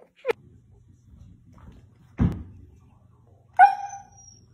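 A husky gives one short, soft bark about three and a half seconds in, falling in pitch as it fades. A dull thump comes about two seconds in.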